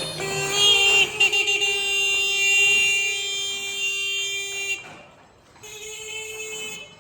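Bike air horn sounding. It holds one steady tone for nearly five seconds, then after a short gap gives a second, slightly higher-pitched blast of about a second.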